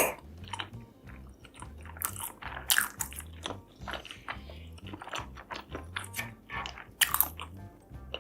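Close-up eating sounds: irregular crunchy bites and chewing, with the sharpest crunches about three and seven seconds in.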